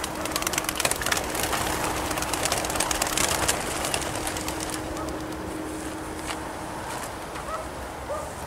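A large flock of racing pigeons flying low overhead: a dense, rapid clatter of wingbeats that swells in the first few seconds and thins out after about four seconds.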